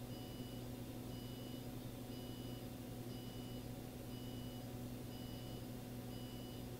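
Faint electronic beeping: a high beep about half a second long, repeating evenly about once a second, over a steady low electrical hum.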